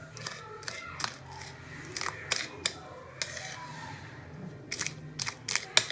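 Kitchen knife chopping scallions on a cutting board: irregular sharp taps of the blade hitting the board, with a quick run of chops near the end.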